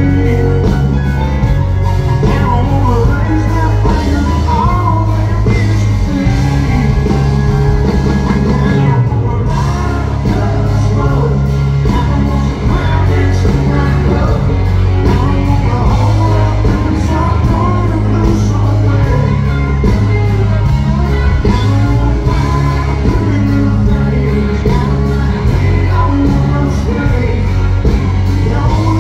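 Live country band playing loudly with a male lead singer, with heavy bass.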